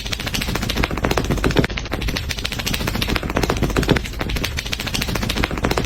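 A fast, continuous clatter of sharp clicks or taps, dense and even throughout.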